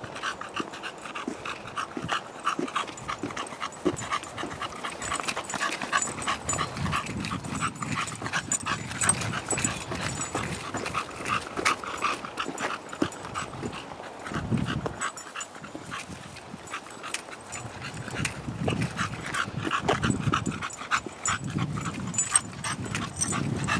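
English bulldog panting hard and fast, a quick steady run of breaths, with low rumbles now and then.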